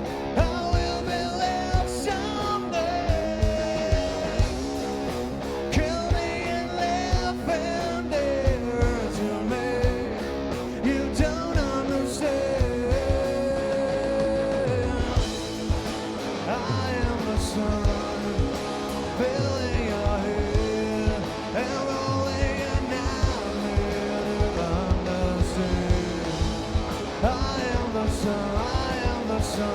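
Live rock band playing loud: drums hitting steadily under electric guitar, with singing.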